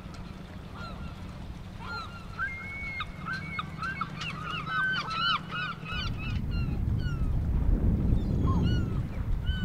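Gulls calling in a rapid run of repeated calls, busiest in the middle. About six seconds in, a low rumble of wind on the microphone rises and takes over as the small sailing boat is out on open water.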